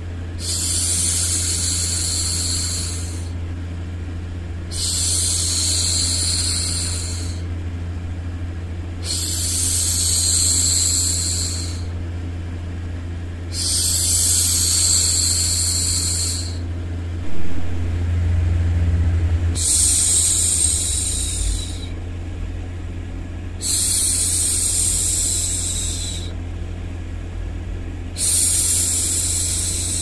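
A woman's soft shushing, a long "shhh" repeated about every four to five seconds, seven times, over a steady low white-noise rumble for soothing a baby to sleep. A brief low bump sounds a little past halfway.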